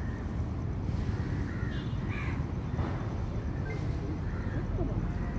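Birds calling outdoors, a few short calls over a steady low rumble of background noise.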